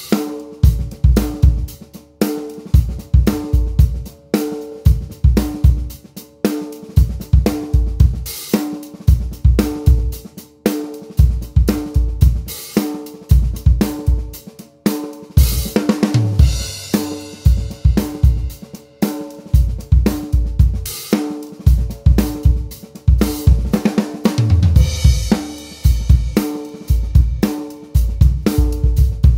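Acoustic drum kit playing a steady groove: kick drum, a Joyful Noise Conquered 14x6.5 copper snare drum and hi-hat, with spun-copper toms and bass drum. Tom fills lead into cymbal crashes about halfway through and again near the end, and there is another crash about a third of the way in.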